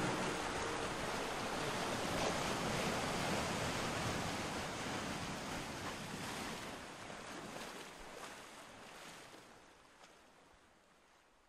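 Steady rushing of water like surf, a hiss with no tune in it, fading out slowly over the last several seconds.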